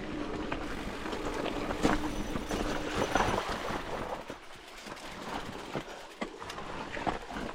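A mountain bike riding over a rough dirt trail: tyres on dirt and rock, with scattered clicks and knocks from the bike over bumps and a steady low rumble of wind on the microphone.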